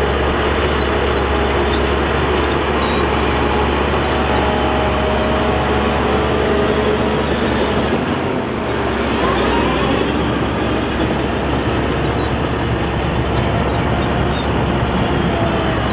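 Heavy diesel earthmoving machinery running steadily under load, with a deep low rumble. About halfway through the sound briefly dips and the engine pitch shifts, then settles again.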